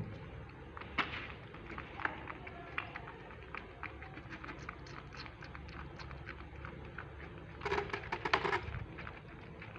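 Kittens suckling at feeding bottles: a run of small wet clicks and smacks, with a louder, busier burst about eight seconds in.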